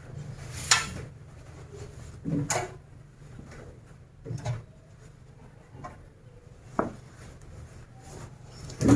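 Clothes being loaded into a front-loading washing machine through its door: a handful of short knocks and thuds, a second or two apart.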